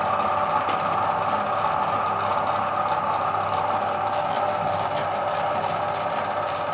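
Electric meat grinder motor running steadily.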